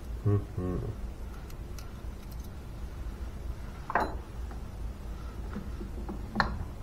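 Small metal tools and parts handled on a workbench: light clinks, with a sharp metallic click about four seconds in and a smaller one near the end.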